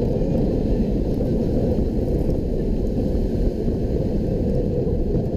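Alpengeist, a steel inverted roller coaster, in full run: a steady rushing noise of wind over the microphone and the train rumbling along the track.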